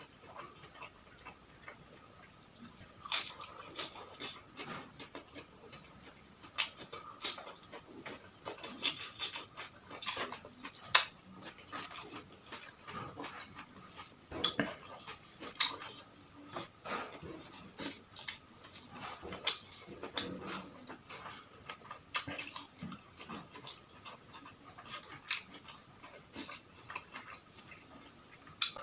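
Close-up eating sounds: irregular crunches, smacks and clicks of chewing with no rhythm, the sharpest crackles coming in clusters.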